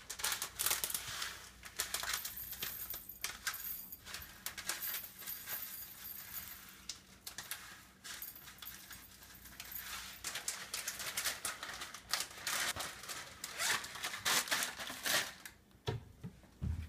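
Plastic bag of whole coriander seeds crinkling and rustling as the seeds are poured into a mortar, with many light ticks of seeds landing. It goes quieter near the end.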